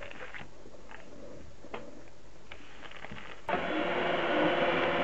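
Electric hand mixer switched on about three and a half seconds in and running steadily, its beaters whipping cream in a plastic container. Before it starts there are only a few faint clicks of handling.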